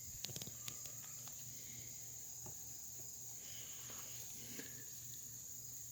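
Faint clicks and taps of screwdrivers being handled and laid against each other for measuring, a cluster in the first second and a few single ticks after, over a steady high-pitched whine.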